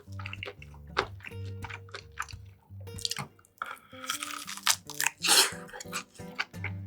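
Close-up eating sounds: chewing and biting of food, with a louder noisy burst about four to five seconds in, over background music with a stepping bass line.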